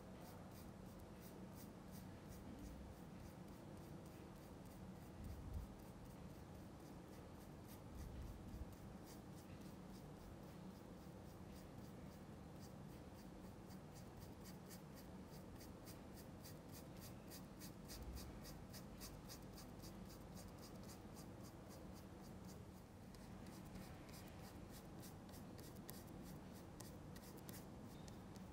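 Faint, quick, even brush strokes on canvas: an oil-painting brush scrubbing and blending paint, with a few soft bumps.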